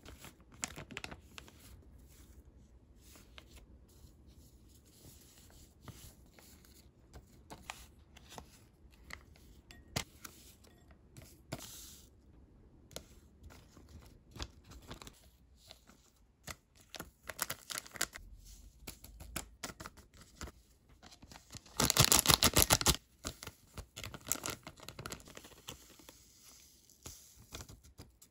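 Small plastic spice sachets being handled, opened and emptied into a glass bowl: scattered crinkles and light taps, with one loud tearing rip lasting about a second, some three quarters of the way through.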